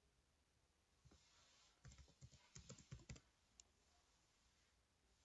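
Faint typing on a computer keyboard: a quick run of keystrokes between about one and three seconds in, and one last key a little later.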